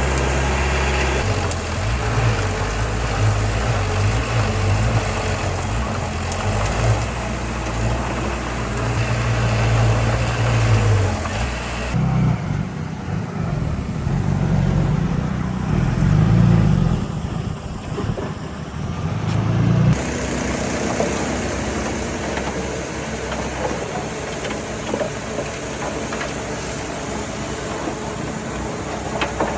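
Diesel engines of heavy earthmoving machinery running steadily at a low, deep note. For several seconds in the middle the sound turns deeper and duller, then returns to the earlier, brighter engine sound.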